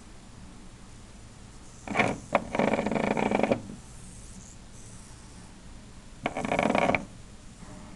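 Plastic Hexbug Nano toys knocked, rattled and scraped on a tabletop as they are moved by hand. There is a knock about two seconds in followed by a rattling scrape of about a second, and another rattling scrape about six seconds in.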